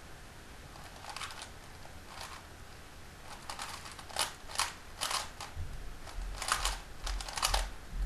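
Plastic 3x3 speedcube being turned as fast as possible through the first two layers (F2L) of a speedsolve: rapid clacking turns in quick bursts, starting about a second in and coming thickest and loudest in the second half.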